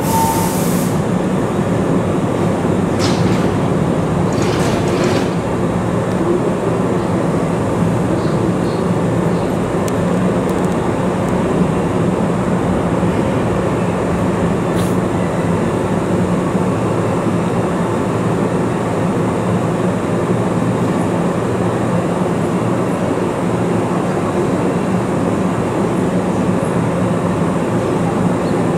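Hankyu Kyoto Line electric commuter train at the station platform, a steady rumble and hum that holds evenly throughout.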